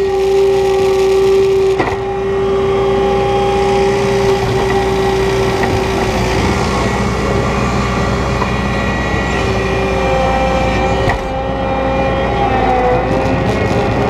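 New Holland 170S skid steer's engine running steadily with a high whine that fades out about six seconds in and comes back briefly near ten seconds. Two sharp clunks sound, about two seconds in and about eleven seconds in.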